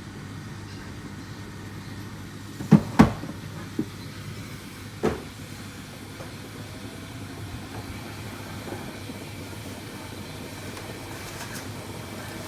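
Neff washing machine drum spinning with an unbalanced load, a steady low hum broken by two loud bangs close together about three seconds in and two lighter knocks shortly after, as the off-balance drum knocks about.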